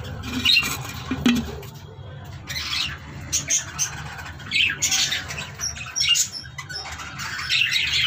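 Budgerigars in a breeding colony squawking and chattering in short, scattered high calls, over a steady low hum.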